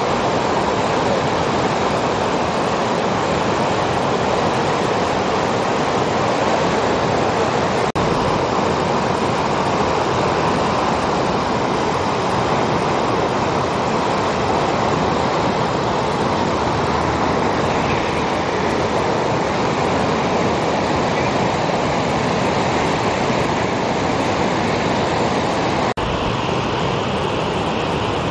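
River in flood, its white water rushing over rapids and through stone bridge arches: a loud, steady rush that gets a little hissier near the end.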